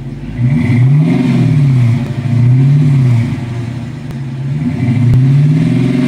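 Dodge Challenger's 5.7 Hemi V8 revved three times from idle through a pair of Flowmaster Delta 40 mufflers with the rear resonators removed, each rev climbing and dropping back over about a second.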